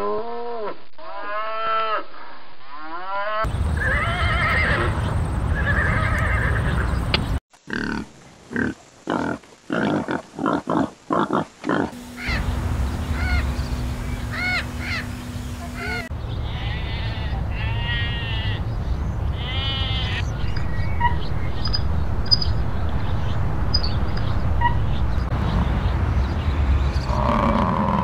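A run of short animal-call clips one after another: a Holstein cow mooing in several falling calls at the start, then loud grunting pulses and other animal calls, with a parrot's short calls over a steady low hum about halfway through.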